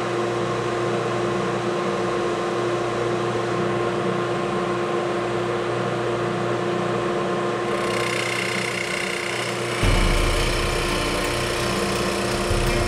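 Calpe M-1300-H wood copy lathe running, its motors and dust collection giving a steady mechanical hum with a constant tone. About eight seconds in a higher hiss joins, and about two seconds later the sound grows louder with a deep rumble underneath.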